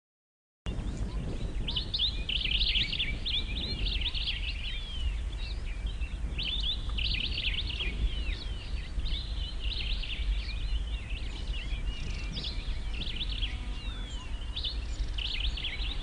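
Many small birds chirping and twittering in quick, overlapping calls, over a steady low rumble. It starts abruptly about a second in.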